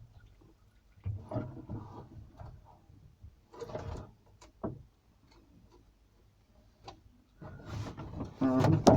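Scattered knocks and clatters of things being handled, with a short burst of voice near the end.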